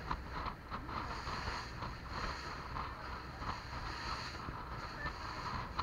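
Motorboat under way at sea: a steady rushing noise of wind buffeting the bow-mounted microphone and water running along the hull, with an uneven low rumble.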